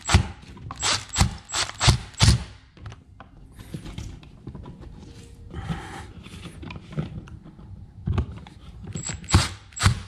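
Power screwdriver driving the mounting screws of a USB wall outlet into the electrical box. It makes a run of sharp clicks and knocks over the first two seconds, is quieter in the middle, and clicks again near the end as the screws are worked alternately top and bottom until tight.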